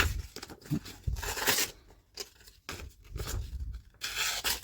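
Freshly sharpened hand-forged knife slicing through paper in a sharpness test, two main rasping cuts about a second in and near the end, with softer paper rustles and handling thumps between.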